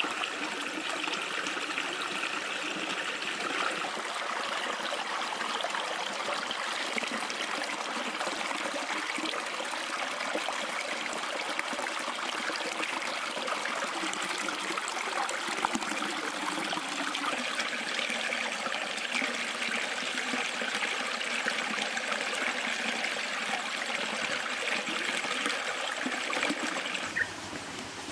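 Shallow stream trickling and splashing over rocks, a steady running-water sound. About a second before the end it gives way suddenly to a quieter background.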